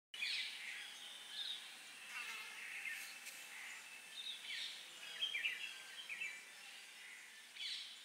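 Birds chirping: many short, high calls, some overlapping, fairly faint over a light hiss.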